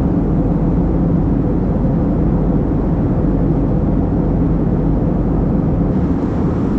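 Steady roar of an Airbus A321neo's engines and airflow heard inside the passenger cabin in flight.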